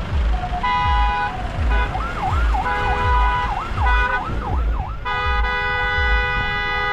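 Horns honking in a slow-moving convoy of cars and SUVs, with several short blasts and then one long held blast from about five seconds in. A siren wails in quick rising and falling sweeps, about two a second, from about two seconds in. A low thudding runs underneath.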